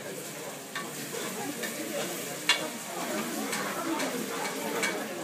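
A metal ladle stirring food that sizzles in a steel cooking pot, with several sharp clinks of the ladle against the pot, the loudest about two and a half seconds in.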